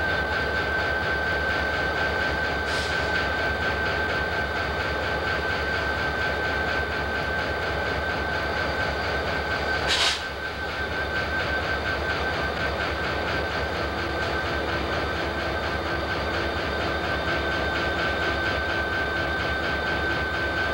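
Diesel-electric locomotives idling close by: a steady engine drone with a constant high tone over it. A faint sharp clank comes near three seconds in and a louder one about ten seconds in.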